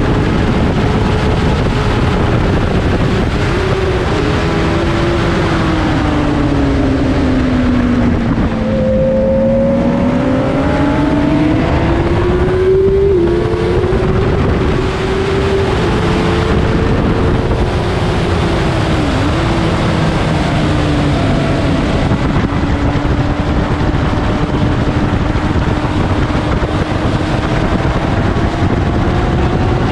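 Sport motorcycle engine at track speed heard from on board, under heavy wind rush. The engine note sinks about eight seconds in and climbs again a few seconds later, with smaller dips further on.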